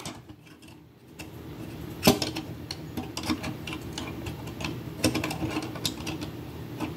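Hard plastic marble-run pieces clicking and rattling as they are pressed and fitted together by hand: the green spiral insert of a GraviTrax Helix being worked into its white frame. The sharpest click comes about two seconds in.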